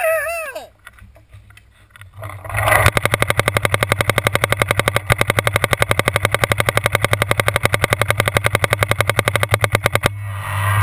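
Paintball marker firing rapidly on full auto, about a dozen evenly spaced shots a second in one long string lasting several seconds. The firing starts a couple of seconds in.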